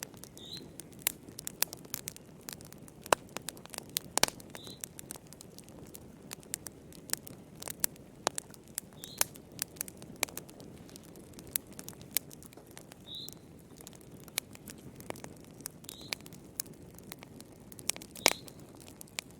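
Wood fire burning in a fireplace: irregular sharp crackles and pops, a few loud, over a steady low rumble of the flames, with a brief high squeak every few seconds.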